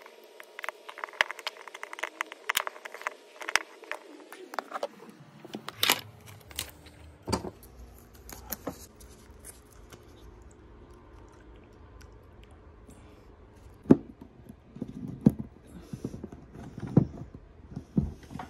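Small clicks, taps and light scrapes of fingers and metal tools on the opened iPhone 13 and its parts. A quick run of little clicks comes first, then scattered knocks, with one sharp click in the middle and a cluster of taps near the end.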